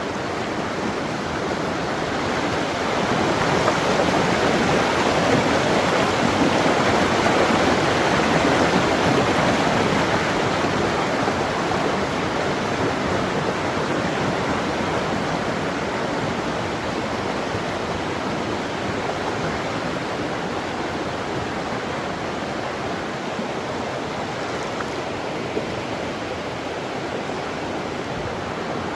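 River water rushing steadily, a little louder for several seconds a few seconds in.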